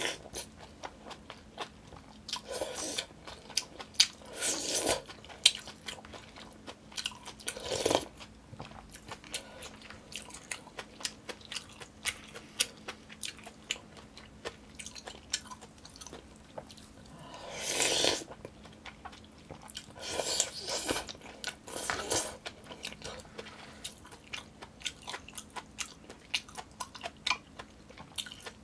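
Close-miked mouth sounds of a person eating yukgaejang, spicy Korean beef soup, with chopsticks. There is steady wet chewing full of small clicks, broken by several longer slurps.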